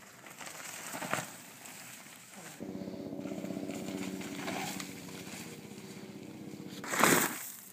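Mountain bike rear freehub buzzing in a steady, rapid ratchet as a downhill rider coasts past, fading toward the end. Near the end there is a short, loud burst of noise, the loudest moment, from the passing bike.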